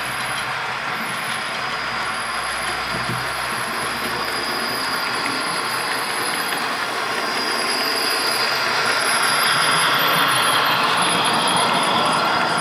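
Hornby OO gauge model of the Princess Coronation 4-6-2 steam locomotive running with Zimo digital steam sound from its onboard speaker, together with the rolling noise of its wheels and coaches on the track, working up a 1 in 100 gradient. The sound grows louder as the train draws near and passes.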